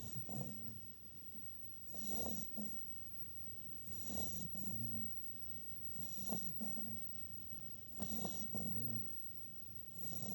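A puppy snoring in its sleep: a rasping snore on each breath, in a steady rhythm of about one breath every two seconds.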